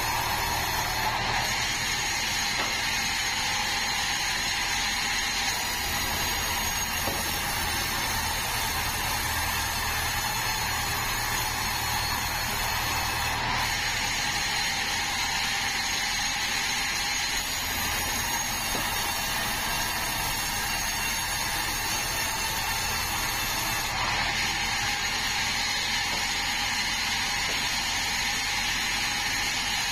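Band sawmill running, a steady mechanical whirring with a low hum underneath.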